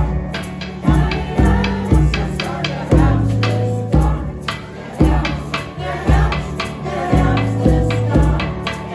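A group of people singing together in unison over a low, steady beat of about one stroke a second.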